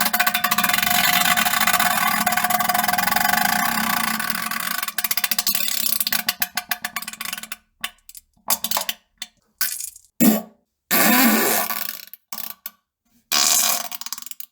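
A long, buzzing fart held at a steady low pitch for about seven seconds, breaking into sputters near its end, followed by several shorter separate farts.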